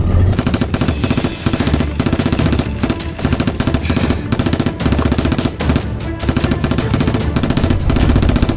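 Rapid, sustained automatic gunfire in a film soundtrack, mixed with action music.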